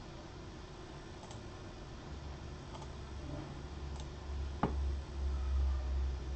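A few faint computer keyboard and mouse clicks, with one sharper click a little after halfway. Under them a low rumble builds from about two seconds in.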